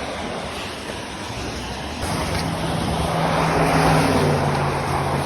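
A car driving past on a wet road: an engine hum comes in about two seconds in, and tyre hiss swells to a peak and eases off, over steady wind and rain noise on the microphone.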